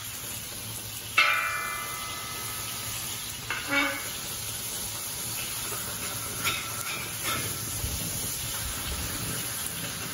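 Wagyu burger patties sizzling in a hot discada while a metal spatula scrapes under them to flip them. About a second in the spatula hits the pan with a ringing clang, and a smaller clank follows a few seconds later.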